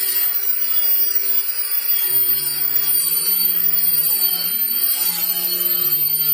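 Background music with held low notes that change pitch every second or so, over a steady high whine and hiss typical of an electric sander running on wood.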